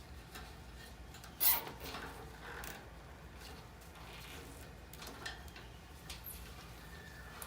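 Scattered short scrapes and knocks of metal furnace blower parts being handled while a capacitor is fastened in its bracket, the loudest scrape about a second and a half in.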